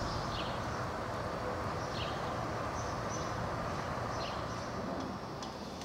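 Steady outdoor background noise with a few short, faint bird chirps.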